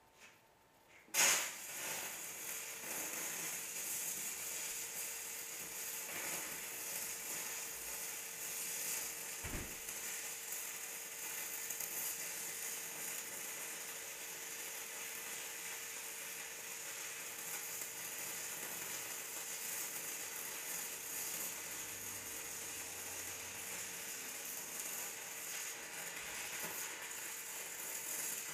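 Shielded metal arc (stick) welding with a 3/32-inch 6010 electrode on mild steel at 80 A DCEP: the arc strikes with a sharp crack about a second in, then runs as a steady crackling sizzle while the bead is laid, with a faint steady tone underneath.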